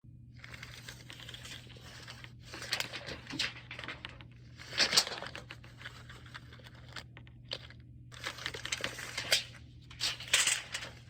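Irregular bursts of crinkling and rustling with sharp clicks, over a steady low hum.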